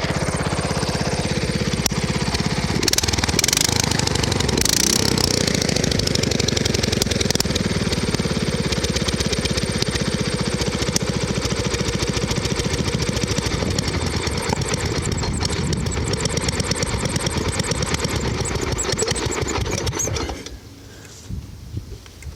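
Riding lawn mower's small engine running steadily with a fast, even firing rhythm, then shut off about twenty seconds in.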